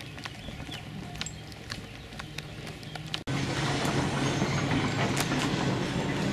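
Bus engine running with scattered rattling clicks. After a sudden break about three seconds in, the engine hum is much louder.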